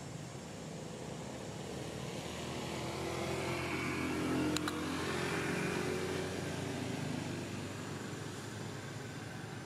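A motor vehicle passing in the background, its engine noise swelling over a few seconds and then fading away, with one short click about halfway through.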